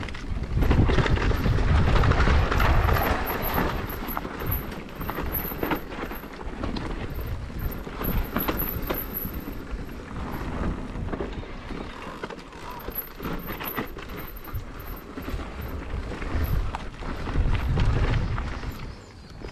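Mountain bike riding a rough dirt-and-rock trail: tyres and bike clattering over the ground with many quick knocks and rattles, under a rumble of wind on the microphone that is loudest in the first few seconds and again near the end.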